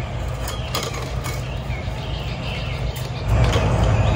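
Steel wool scrubbing a bare, rust-spotted cast iron skillet wet with vinegar and water: short scraping strokes that grow louder about three seconds in. Small birds chirp in the background.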